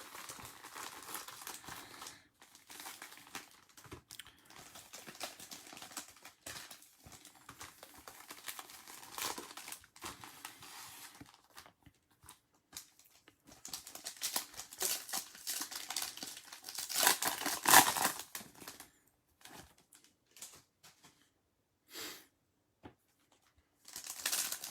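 Crinkling and tearing of trading-card pack wrappers and packaging as 2020 Topps Chrome packs are opened and handled, in irregular spurts, busiest and loudest a little past the middle before a few quiet gaps.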